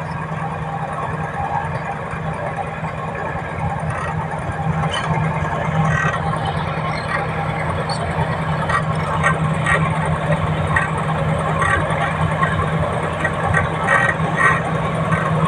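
Komatsu bulldozer's diesel engine running steadily as the machine travels, with irregular clanking from the tracks that grows busier and a little louder after the first few seconds.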